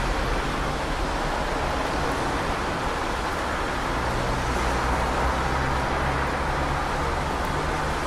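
Steady rain with cars on a wet road: an even hiss of rain and tyre spray, with a low vehicle rumble that grows about halfway through and drops away near the end.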